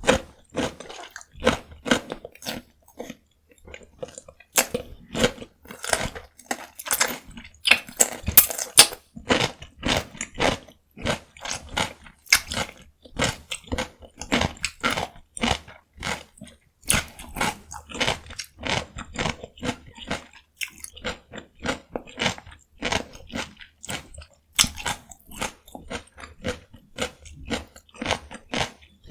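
Crisp biting and chewing of raw cucumber, loud crunches following each other a few times a second.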